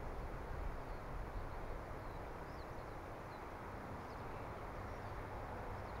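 Steady wind noise, a low rumble with rustling, and faint short high bird chirps scattered throughout.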